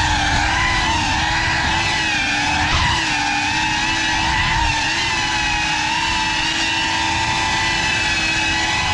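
GEPRC Cinelog35 6S cinewhoop FPV drone in flight, its brushless motors and ducted propellers giving a steady whine whose pitch dips and rises slightly with throttle changes.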